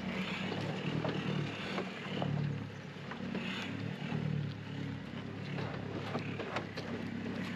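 Toyota Hilux 4x4's engine running as it drives over rough track, its hum swelling and easing, with scattered knocks and rattles.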